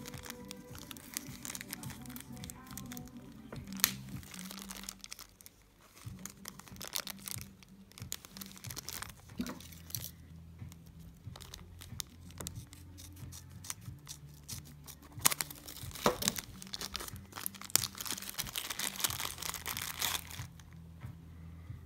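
Thin plastic packaging bags and bubble wrap crinkling and rustling as they are handled and pulled open, in quick crackles that are densest a few seconds before the end, over background music with a low bass line.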